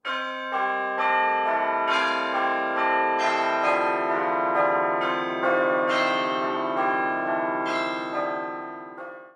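Title music of bell-like chime notes, struck about twice a second, each ringing on and overlapping the others. It fades in the last second and stops abruptly.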